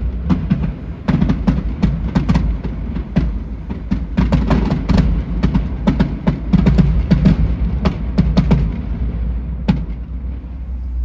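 Consumer fireworks going off in a rapid, irregular run of bangs and crackles that thins out near the end, with music underneath.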